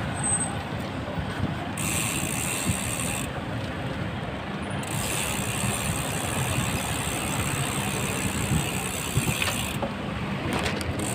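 Bicycle rolling along a city street, with road and traffic noise, and the rear freewheel's fast ratcheting tick coming in twice as the rider coasts: about a second's worth early on, then a longer stretch of about five seconds.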